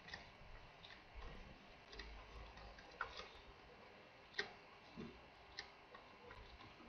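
Faint, irregular ticks of a stylus tapping on a tablet as words are handwritten, about a dozen over several seconds, over quiet room tone.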